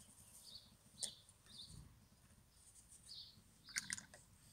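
Near silence with faint, scattered small-bird chirps and a few light clicks of a paintbrush against a watercolour palette, about a second in and again near the end.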